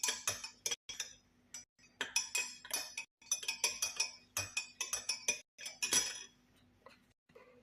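A spoon stirring the ginger and honey drink, clinking against the inside of a glass in quick runs of about three or four strikes a second with short pauses, stopping a little over six seconds in.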